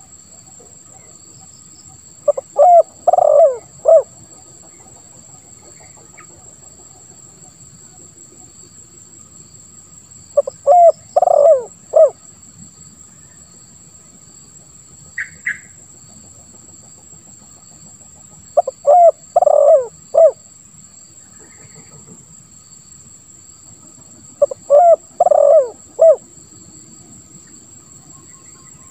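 Spotted dove (tekukur) cooing: four phrases of several quick, low coos each, spaced several seconds apart, with one short higher call in between. A steady faint high-pitched buzz runs underneath.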